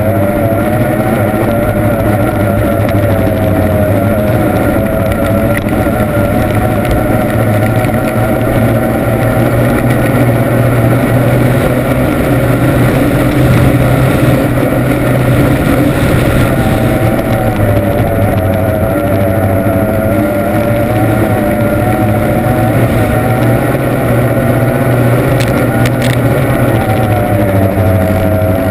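Formula 1 tunnel powerboat's outboard racing engine running hard at speed, heard from on board the boat. The engine note is steady and loud, its pitch wavering slightly, dipping about halfway through and climbing again.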